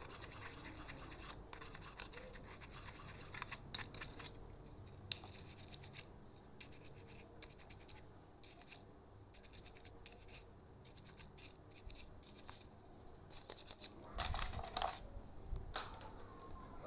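A small brush scrubbing a laptop cooling fan: bursts of quick, scratchy bristle strokes, stopping and starting, with the hardest scrubbing about fourteen seconds in.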